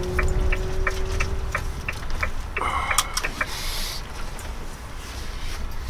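A vehicle's turn-signal indicator ticking evenly about three times a second over the low rumble of the campervan's engine as it turns in, stopping about two seconds in. About halfway through there is a sharp click, followed by a short hiss.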